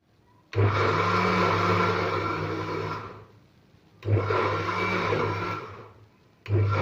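Electric blender run in three short pulses, chopping soaked fava beans with onion, garlic, herbs and water into ta'meya (falafel) paste. The motor winds down after each of the first two runs.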